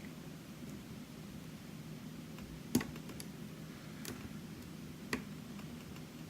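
Small metallic clicks of a lock pick and tension wrench working the pins of a challenge lock during picking: a few sparse ticks, the loudest just under three seconds in, over a low steady hum.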